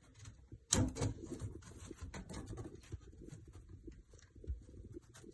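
Drawer bottom panel being fitted into a flat-pack drawer: a sharp knock about three-quarters of a second in, then a run of small clicks and scraping as the panel is worked into place.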